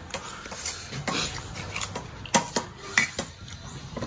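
Plates and eating utensils clinking: a dozen or so light, irregular clicks and taps of tableware as food is served or eaten.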